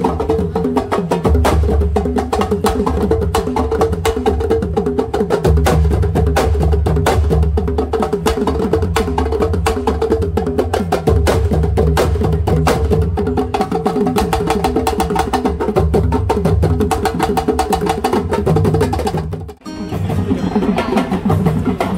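Ensemble of djembe hand drums playing a fast, dense rhythm of sharp slaps over deep bass tones. The sound dips briefly near the end, then the drumming continues.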